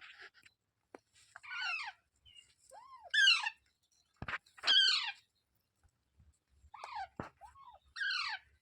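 Pet parrot calling: a string of about five short squawks, each falling in pitch, with a few brief arched notes between them and a couple of sharp clicks near the middle.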